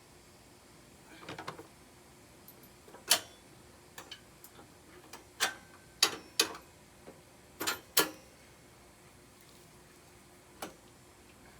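Sharp metal clinks and knocks of mini bike parts and tools being handled while fitting the wheel and spacer: a few light ticks, then single strikes at irregular intervals, the loudest in a run about halfway through.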